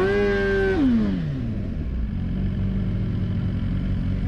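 Suzuki GSX-R sport bike engine revved up and held high for a moment, then the revs fall away over about half a second as the clutch is let out for a standing-start launch, settling into a lower, steady engine note under acceleration.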